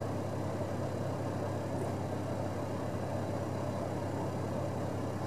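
Engine idling: a steady low hum.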